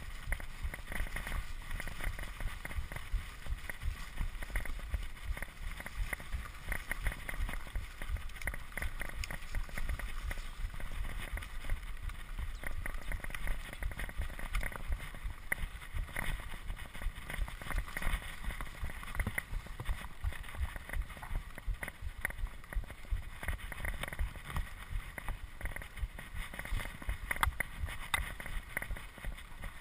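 Mountain bike riding over a dirt forest trail: a constant low rumble of tyres and bumps, with many small rattles and clicks from the bike.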